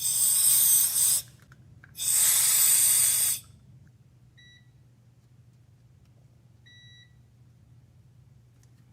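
Two loud bursts of spray from a pressurized can, each about a second long and a second apart, aimed at the corroded pins of an electrical connector being cleaned. Two faint short beeps follow later.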